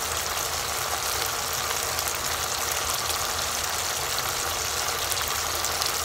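Masala paste of yogurt and cashew-raisin frying in hot oil in a pan, sizzling steadily with a dense crackle of small pops, over a steady low hum.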